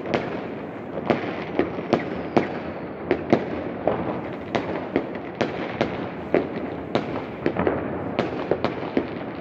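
Fireworks and firecrackers going off all around: a continuous crackle with sharp bangs, irregular at about two or three a second.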